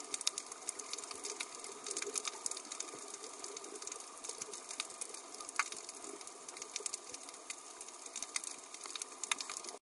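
Underwater reef ambience: a steady hiss with dense, irregular crackling clicks.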